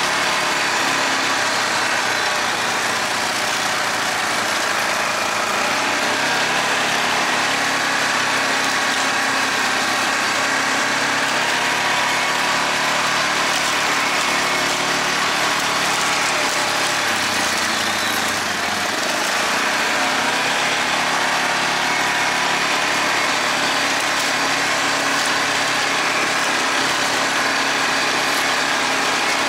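Yamaha Grizzly 450 quad bike's single-cylinder engine running steadily, the revs shifting briefly about two-thirds of the way through.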